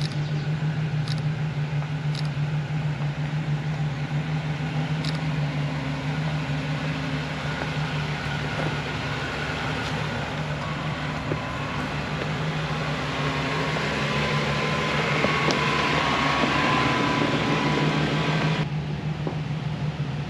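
Jeep Wrangler engine running at low revs as it crawls up a rutted dirt trail. It grows louder with a rising whine near the end, then the louder sound cuts off abruptly.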